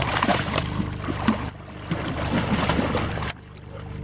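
A hooked blue catfish thrashing and splashing at the surface beside a boat hull as it is hauled in, in two spells of splashing, the second ending about three seconds in.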